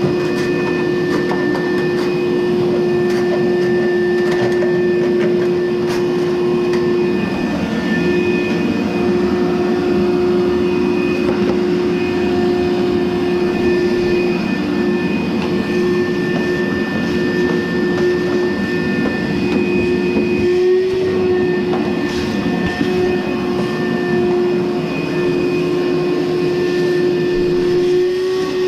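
Frigidaire electric clothes dryer running: a steady whine over a continuous rumble from the turning drum.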